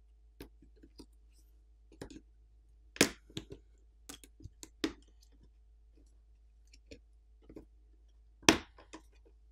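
A dozen or so scattered plastic clicks and snaps as a smartphone's plastic camera and NFC antenna cover is pried up with a plastic pick and unclipped from the frame. The loudest snaps come about three seconds in and again near the end.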